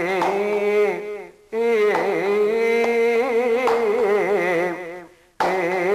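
Male Kathakali singer singing a padam with long held notes and wide oscillating ornaments. A short break comes about a second and a half in, and a long phrase fades out near the end before the next one starts.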